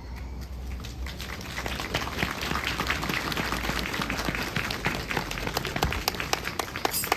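Crowd applauding, the clapping building up about a second in and keeping on as a dense patter of many hands.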